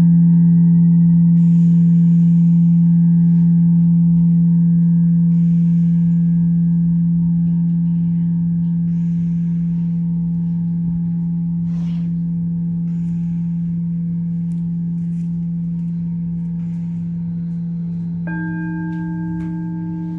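A deep singing bowl tone ringing on and slowly fading. Near the end a second, higher-pitched bowl is struck and rings over it.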